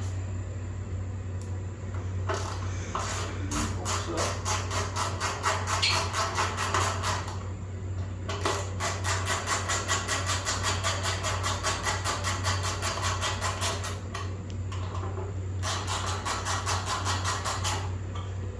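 Hand ratchet clicking in quick, even runs of several clicks a second as a fastener is turned, in three long bursts with short pauses between, over a steady low hum.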